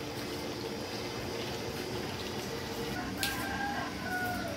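A rooster crowing once in the background about three seconds in: one long call that steps down in pitch toward its end, over a faint steady hum, with a sharp click just before it.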